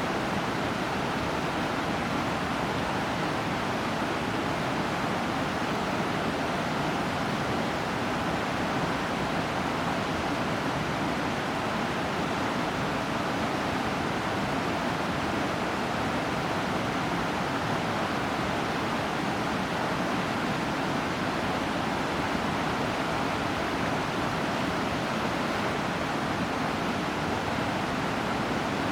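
Veterans Falls rushing in a steady, even roar of falling water.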